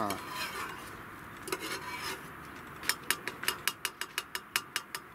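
Metal spoon stirring chai in a stainless steel cup: a soft scrape about a second and a half in, then quick clinks against the side of the cup, about six a second, through the last two seconds.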